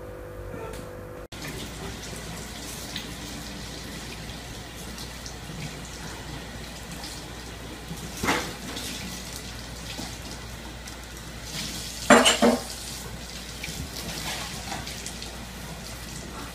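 Household items clattering as a toddler rummages in a low metal kitchen drawer, over a steady hiss. There is a short clatter about a third of the way in and a louder rattle of knocks about three quarters through.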